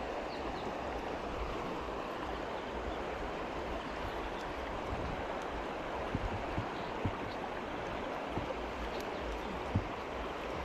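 Steady rush of river water flowing past rocks. A few light taps and clicks sound over it, around the middle and once near the end.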